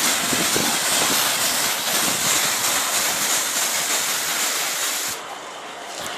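Pressure washer jet spraying water onto a van's side panels and wheel: a loud steady hiss that cuts off about five seconds in, leaving a quieter steady noise.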